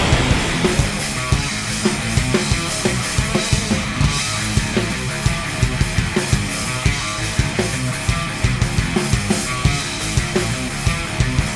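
Hard rock music with a fast, steady drum beat.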